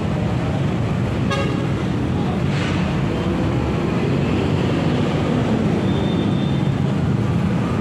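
Steady low rumble of road traffic or a running engine, with a brief high sound about a second in.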